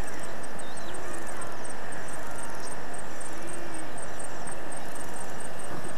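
Steady rushing outdoor noise, with a few faint chirps over it and a fast, regular high ticking at about four ticks a second.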